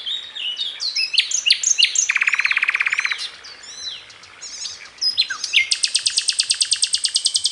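Birds chirping and calling, with a rapid trill about two seconds in that lasts about a second, and a longer, higher rapid trill starting about five and a half seconds in.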